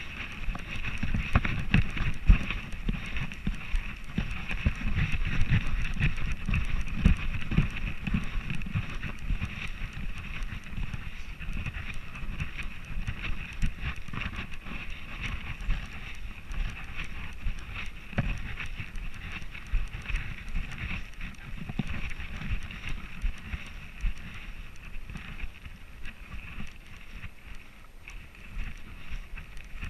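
Handling noise from a camera strapped to a dog's harness: irregular low thumps and rumble from the dog's movement, with wind on the microphone and a steady high hiss behind. The knocking is heavier in the first third and eases after.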